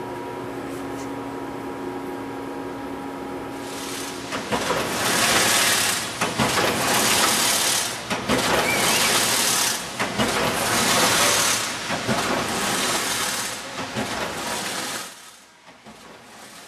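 Automated chain link fence weaving machine running. First a steady hum with a few pitched tones, then from about four seconds in a much louder clattering hiss that swells and falls about every two seconds. It drops off sharply near the end.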